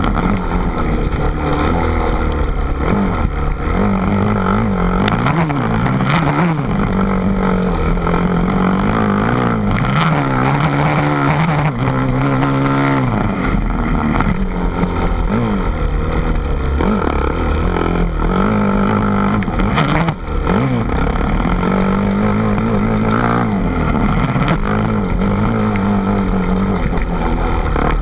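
An engine running, its pitch rising and falling again and again.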